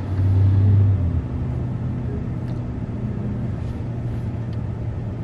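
Low, steady rumble of a running vehicle with a droning hum that is louder for about the first second.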